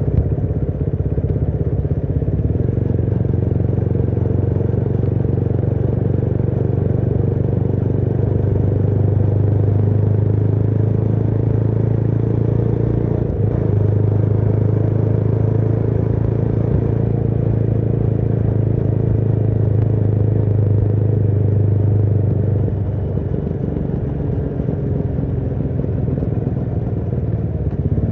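Motorcycle engine running steadily while riding, its low note holding even, with a brief dip about halfway through. The engine eases off, going quieter and lower, near the end.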